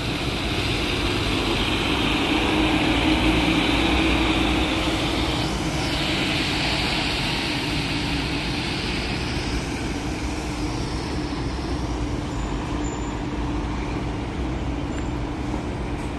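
Marcopolo New G7 coach pulling away: its diesel engine runs with a steady hum and a hiss of tyres on the wet pavement, loudest in the first few seconds and fading after about ten seconds as the bus moves off.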